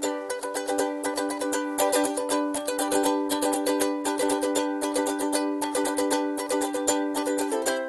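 Background music: a quick plucked-string tune, its notes picked or strummed several times a second over held chords.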